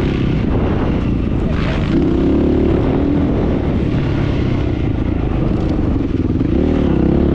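A vehicle engine running loudly, its pitch rising and falling as the revs change, over a steady rushing noise.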